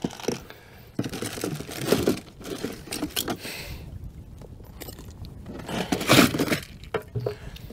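Rummaging in a boat's deck storage compartment: a hand-held fish scale with a metal chain lifted out and plastic tackle trays and bottles knocked about, in irregular clicks, rattles and rustles, with a louder clatter about six seconds in.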